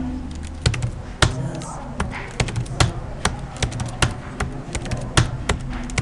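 Computer keyboard keystrokes: irregular sharp taps, a few a second, as a password is typed into the Windows 7 login box.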